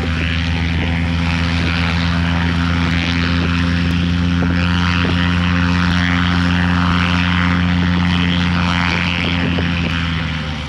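Antonov An-2 biplane's nine-cylinder radial engine and propeller running with a steady low drone as the plane taxis, its engine wrecked by an in-flight failure and leaking oil but still turning. The drone fades near the end.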